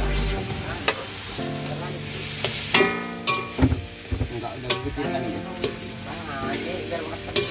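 Fried rice sizzling in a wok while a metal spatula stirs and scrapes it, with repeated sharp clinks and brief ringing scrapes of the spatula against the wok.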